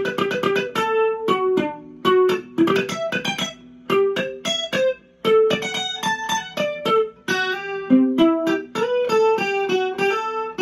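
Acoustic guitar with a capo, played solo: a bachata lead of single plucked notes, starting with a fast run of repeated notes and then moving into a picked melody of separate notes.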